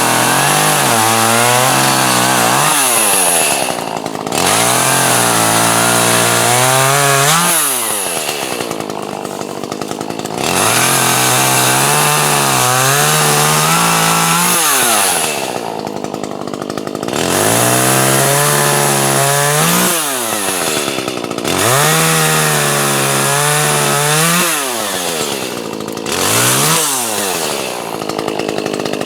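Two-stroke chainsaw cutting through logs at full throttle. The engine pitch climbs sharply as the chain comes free, then drops and holds lower as it bites into the wood, over and over, about every three to four seconds.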